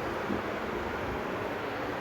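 Steady background hiss and low rumble, with no distinct events.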